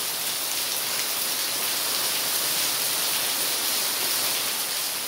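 Heavy rain pouring down steadily, a dense even hiss with no breaks.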